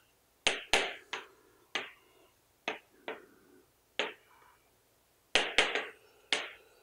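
Chalk writing on a blackboard: a string of sharp, irregular taps and short scrapes as letters are written, with a gap of about a second partway through.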